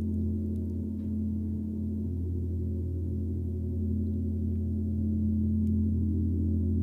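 Gong played softly and continuously, a low sustained wash of many overlapping tones that swells slightly near the end.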